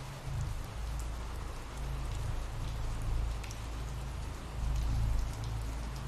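Ambient rain sound effect: steady rainfall with scattered drop ticks over a low rumble that swells briefly about five seconds in.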